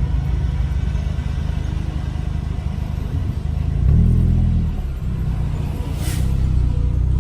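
Straight-piped Audi A3 quattro exhaust (2.5-inch pipe from the O2 sensor back) with a low, steady rumble as the car drives; about four seconds in it swells under acceleration, dips a second later, then builds again.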